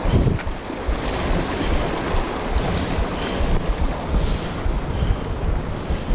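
Wind buffeting the camera microphone: a steady rushing hiss with gusty low rumbles.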